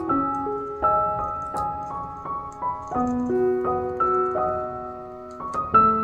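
Background music: a solo piano playing a slow, gentle melody, each note struck and left to ring out.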